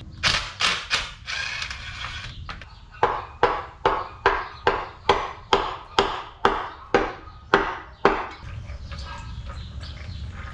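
A cordless drill whirs briefly at first. Then comes a regular run of about a dozen sharp knocks, two to three a second, as the steel oil pan of a Mercedes OM 352A diesel engine is knocked and worked loose from the block.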